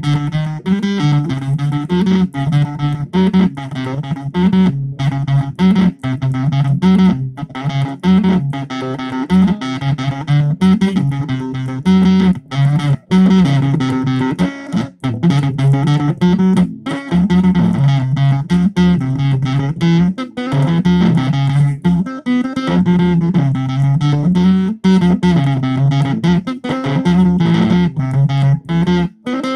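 Stratocaster-style electric guitar played through a Zoom 506 bass distortion pedal: a repeating low, distorted riff with brief stops between phrases.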